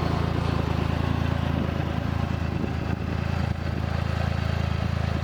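UTV engine idling steadily.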